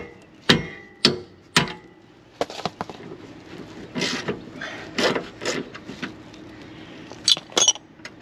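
Metal clanks and scrapes from a wrench and hands working a leaf-spring wet bolt and its nut at the spring eye of a trailer suspension. Four sharp clanks with a short ring come about half a second apart at the start, then scattered clicks and rasping scrapes, with two sharp clicks near the end.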